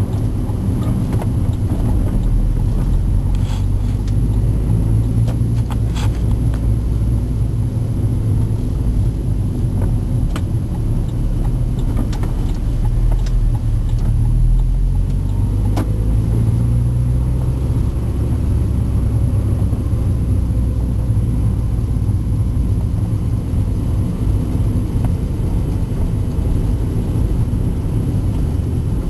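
Car on the move, a steady low rumble, with a few brief high squeaks scattered through it: the squeak the owner is trying to track down.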